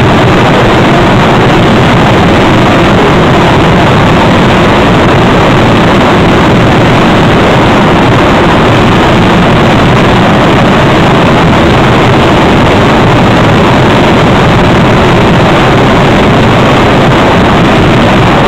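Continuous fireworks barrage with the rapid bursts blurred together into one steady, very loud noise, the camera microphone overloaded.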